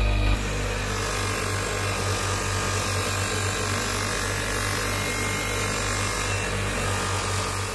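Spinning wheel on an electric bench motor working a brass ring held against it: a steady whirr with a low electrical hum and the hiss of the wheel on the metal. It starts with a cut a moment in.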